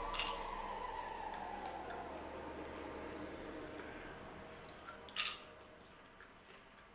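Someone chewing honey-coated popcorn close to the microphone: faint crunching with a few crisp cracks, the loudest about five seconds in.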